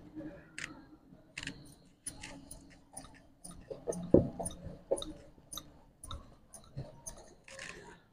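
Roti dough being rolled out: a rolling pin clicking and knocking against a round rolling board about twice a second, with soft dough-handling sounds and one louder knock about four seconds in.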